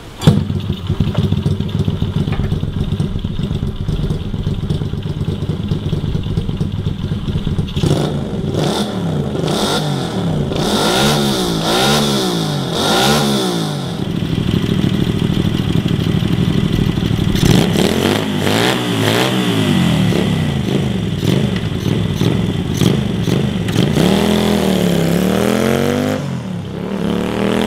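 A small 100cc 90-degree V-twin motorcycle engine, built from two air-cooled single-cylinder OHC Honda SS50 engines, starts up and runs. It is revved in repeated blips, rising and falling in pitch several times, then pulls away with a rise and fall in pitch near the end.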